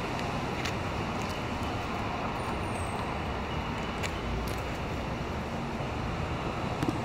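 2008 Toyota Yaris sedan's 1.5-litre four-cylinder idling steadily through a Magnaflow cat-back exhaust, heard at the tailpipe.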